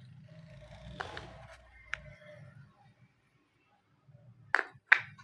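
Wooden puzzle pieces clicking and knocking against a wooden board: a light rustle and click early, then two sharp, loud knocks in quick succession near the end.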